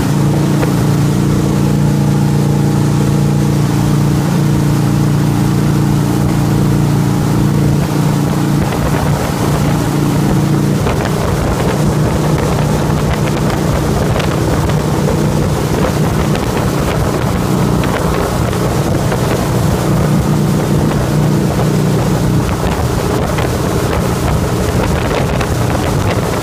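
Motorboat engine running steadily at speed under the load of towing an inflatable tube, over the rush of churning wake water and wind buffeting the microphone.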